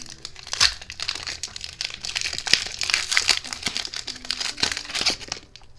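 Foil wrapper of a Pokémon trading card booster pack crinkling and rustling in the hands as the pack is opened, with many small crackles; it stops shortly before the end.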